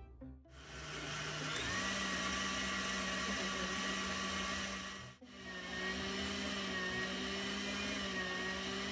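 Electric tilt-head stand mixer running, its wire whisk beating heavy cream into whipped cream: a steady motor whine that starts about half a second in and steps up in speed a moment later, from low toward high. The sound breaks off briefly about five seconds in, then carries on.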